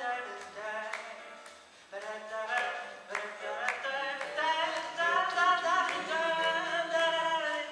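Male vocal quartet singing a cappella, several voices in harmony holding and shifting chords, with a brief lull about two seconds in.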